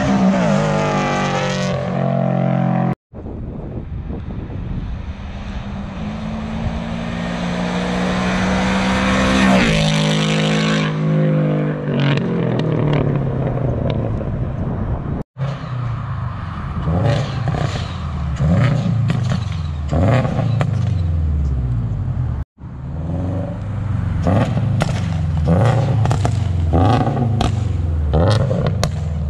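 Exhaust of a 2023 Toyota GR86's flat-four boxer engine with catless unequal-length headers, heard in several short roadside clips cut together. The car accelerates past with the engine note climbing for several seconds, then comes off the throttle with a falling note and rapid crackles.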